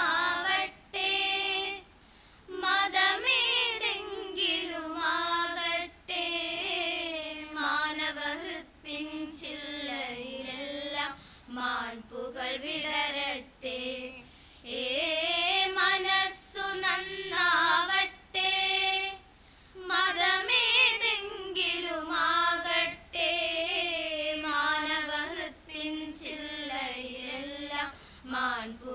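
A small group of teenage girls singing a melody together in unison into a microphone, in phrases separated by short pauses, with no instruments heard.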